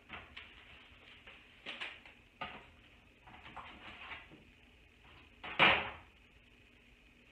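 Scattered handling sounds at a kitchen sink: light knocks, clinks and rustles of items being moved about, with one louder short clatter about five and a half seconds in.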